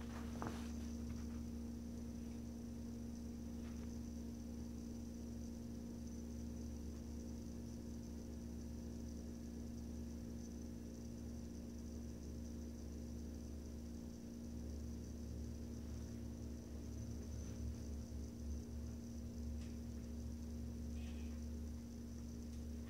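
Steady mains hum, low and even, with a thin high whine above it and a few faint clicks.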